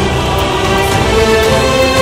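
Background music: sustained tones held over a busy low accompaniment.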